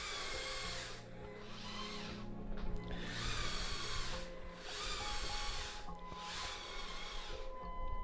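The electric motors and plastic gearing of a Lego gantry crane whir in about five short runs of roughly a second each, with brief pauses between them. The crane is stepping along the container yard in stages during its automated scanning run.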